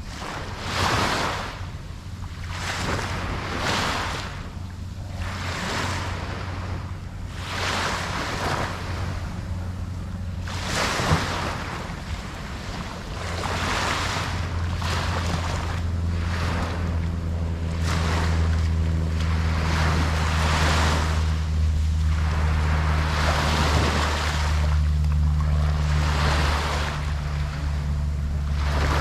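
Ocean surf washing in and out, the noise swelling and falling every second or two. A steady low hum runs underneath and grows stronger about halfway through.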